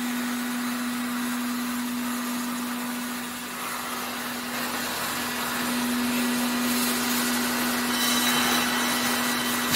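Vacuum dispersing mixer's lift raising the mixer head and lid out of the tank: a steady machine hum at one pitch with a hiss of noise over it.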